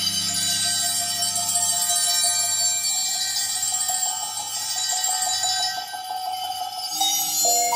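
Recorded music played back through a hi-fi system of floor-standing loudspeakers driven by valve amplification. Long-held high notes ring through most of it, and new lower notes come in near the end.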